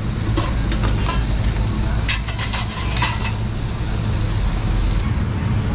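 Pork chop sizzling on a hot cast-iron sizzling plate over a gas burner, a steady hiss, with metal tongs clicking against the plate several times around the middle. A steady low rumble runs underneath.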